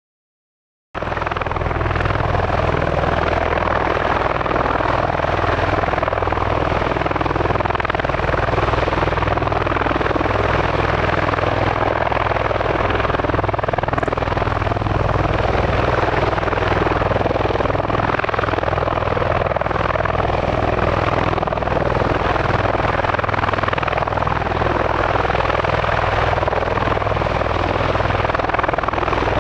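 MV-22 Osprey tiltrotor running steadily, a low beat from its proprotors under a broad rush from its turboshaft engines. It starts suddenly about a second in and stays at an even level.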